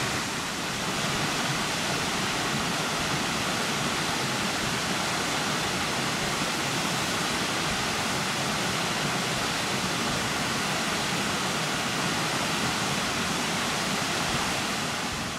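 Steady rush of a tall waterfall pouring down a rock face. The sound fades out near the end.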